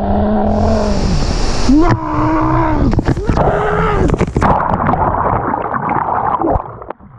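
People letting out long, drawn-out yells, three in a row, over rushing, splashing river water. The water noise grows denser after the yells, then drops away suddenly near the end.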